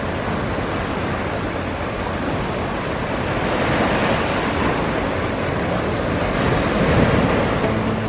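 Ocean surf breaking and washing over shoreline rocks: a steady rush of water that swells around the middle and again, loudest, near the end.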